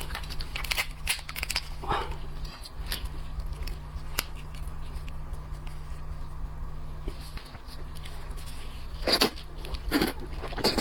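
Seafood being handled and eaten close to the microphone: scattered clicks and crackles of shell and mouth sounds over a steady low hum, with a louder cluster near the end.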